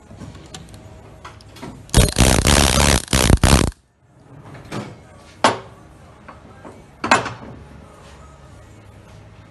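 Yokota YDP-13 pneumatic dowel pin puller running loudly for about two seconds in a few short bursts as it hammers a threaded dowel pin out of a steel mould plate. A few sharp knocks follow.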